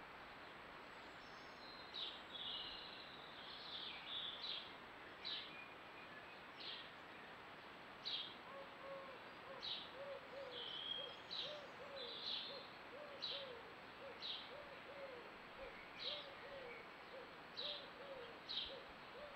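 Garden birdsong: a songbird repeating short high chirps about once a second, joined about eight seconds in by a pigeon cooing low, a steady run of short notes about twice a second, over a faint background hiss.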